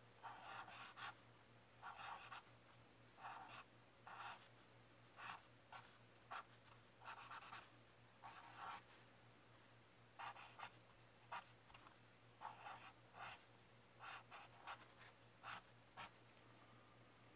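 Green felt-tip marker writing on lined paper, a quiet series of short scratchy strokes, one after another, as letters are drawn.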